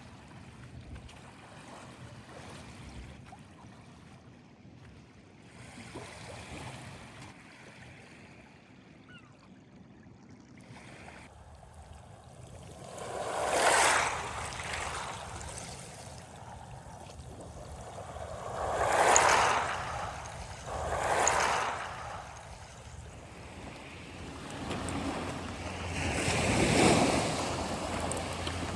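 Waves washing onto the shore. The first half is a soft, steady wash; then four louder waves break one after another over the second half.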